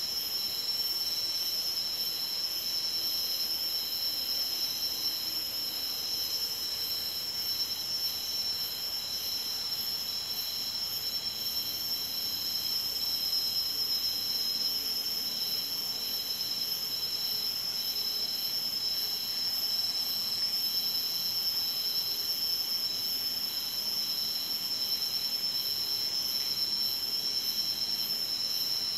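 A steady chorus of insects in tropical forest, several kinds trilling at once at different high pitches, one of them in a quick, even pulsing rhythm.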